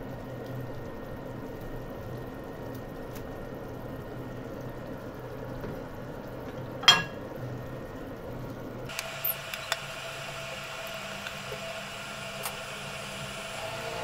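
Rui fish curry simmering in a nonstick pan, a steady bubbling hiss, with one sharp click about seven seconds in. About two-thirds of the way through the sound changes abruptly to a different background with a faint steady tone and a few light ticks.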